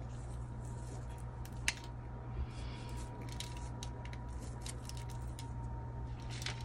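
Scattered small clicks and crackles of fingers working an African violet over a plastic tray, snapping off its lower leaves and crumbling potting soil from the root ball, with one sharper click about two seconds in. A steady low hum runs underneath.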